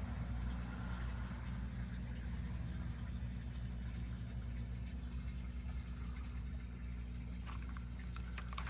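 An engine idling, a steady low drone, with a few sharp clicks near the end.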